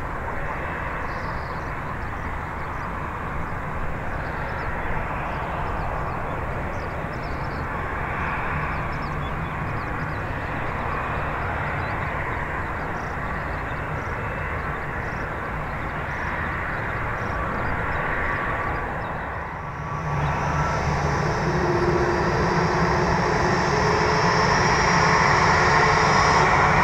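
Boeing 787-8's Rolls-Royce Trent 1000 jet engines running with a steady noise. After a brief dip about twenty seconds in, the sound grows louder with a steady whine and keeps building toward the end as the engines spool up for takeoff.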